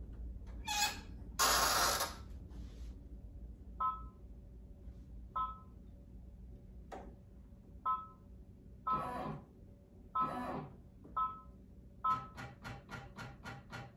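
A loud rustle of handling about two seconds in, then a series of short two-tone beeps from the multi-needle embroidery machine's controls as it is set up. About twelve seconds in the machine starts stitching, a steady rapid tapping about four times a second.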